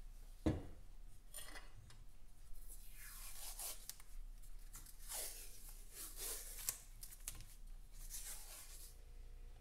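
Old masking tape being peeled off a chrome exhaust header pipe in several tearing pulls, with a single knock about half a second in.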